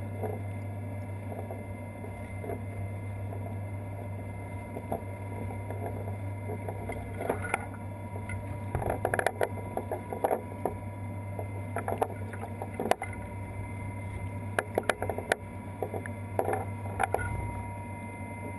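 Steady hum of the kinetic sculpture's machinery, with irregular light clicks and knocks that grow more frequent from about seven seconds in as model water molecules fall into the steel drum and strike its platform and walls.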